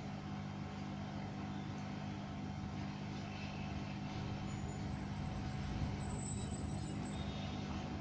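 Hot-air rework blower running with a steady hum and hiss as it heats the solder under a phone's charging port, swelling louder for about a second around six seconds in.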